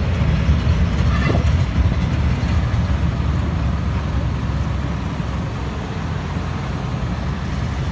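Steady low rumble of a moving jeepney's engine and road noise, heard from inside its open-sided passenger cabin.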